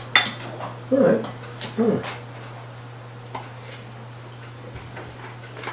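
Cutlery clinking against ceramic bowls, with two short hummed "mm" sounds about one and two seconds in as someone tastes the food. After that only a few faint clicks over a steady low hum.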